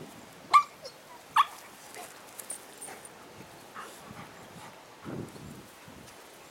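A White Shepherd and an Australian Kelpie puppy play-fighting. Two short, sharp, high-pitched yelps come about a second apart near the start, followed by scattered small sounds and a lower, softer sound about five seconds in.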